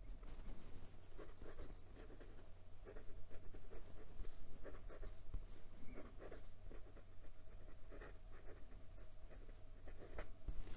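A Jinhao 85 fountain pen's thin extra-fine nib scratching across notepad paper in many short, irregular strokes as words are handwritten. The nib is a scratchy one.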